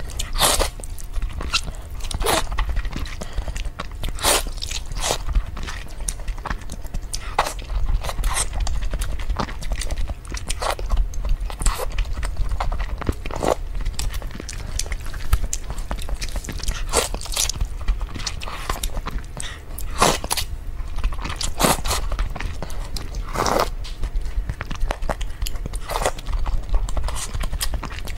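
Close-miked eating sounds: noodles slurped from broth and chewed, with irregular wet mouth smacks and clicks. A steady low hum runs underneath.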